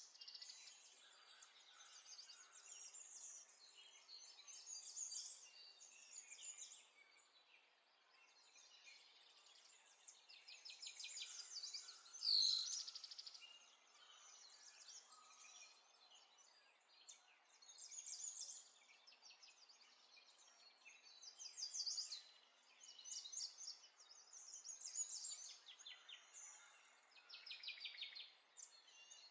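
Faint birdsong: several birds chirping and trilling in short repeated phrases, with one louder call about twelve seconds in.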